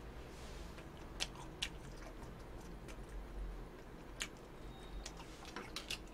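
Scattered soft clicks and taps from a person eating a hamburger, with a few quick clicks near the end as a plastic fork is handled in a takeout box of spaghetti.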